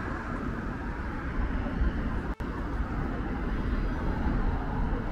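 Busy high-street ambience dominated by road traffic: cars running past with a steady low rumble and tyre noise. The sound drops out for an instant about two and a half seconds in.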